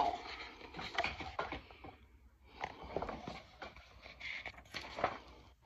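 Pages of a hardcover picture book being turned and the book handled, soft paper rustles with light taps in three short spells.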